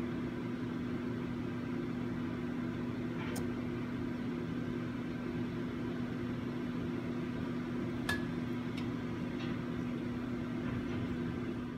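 Steady electric hum with a strong even tone, broken by two faint light clicks, one about three seconds in and one about eight seconds in.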